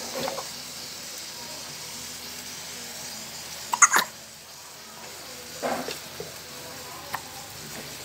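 Pomfret braising in a little liquid in a steel pan on a gas burner, sizzling with a steady hiss. A few sharp clicks stand out, the loudest pair just before four seconds in.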